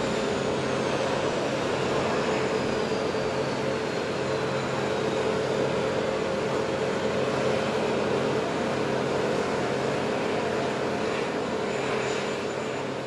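Steady drone and whine of a C-130 Hercules's turboprop engines, with a high whine falling slowly in pitch over the first few seconds. The noise fades out near the end.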